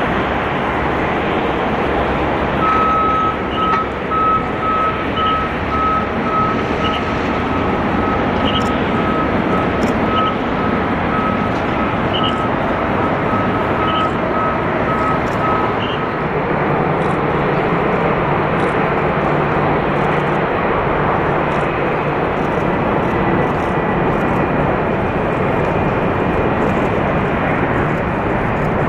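Airliner jet engines running as the planes taxi and roll on the runway: a steady, loud rush, with a low hum joining about halfway through. From about three seconds in to about sixteen seconds, a rapid series of short high electronic beeps sounds over it.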